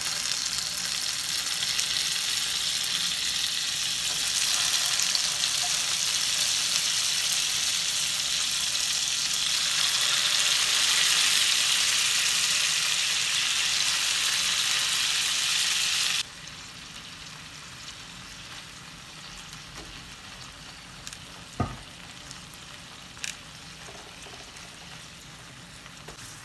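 Marinated shrimp frying on their first side in melted butter and a little cooking oil in a nonstick pan: a loud, steady sizzle that drops suddenly to a quieter sizzle about two-thirds of the way through. Two sharp clicks come near the end.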